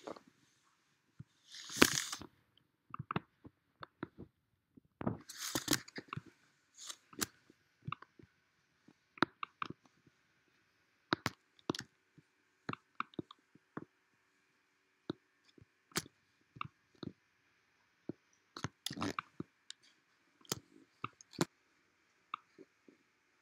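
Computer mouse buttons and keys clicking at irregular intervals, with a few short, louder scraping noises about two, five and nineteen seconds in.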